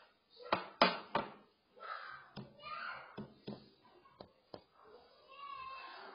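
Sharp knocks: three loud ones close together in the first second or so, then about five lighter ones spaced over the next few seconds.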